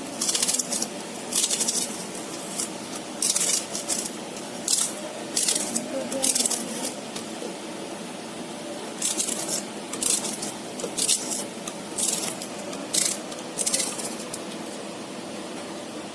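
Kitchen food preparation: a run of short, irregular scraping strokes, about one a second with a few pauses, over a steady low hum.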